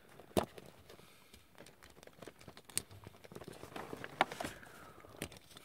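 Light clicks and taps of hard plastic toy parts being handled and pressed together as a shoulder armour piece is snapped onto an action figure, with a few sharper clicks.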